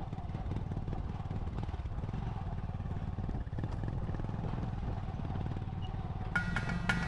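A steady low rumble with a faint held tone. Near the end, music played on mallet percussion such as marimba starts.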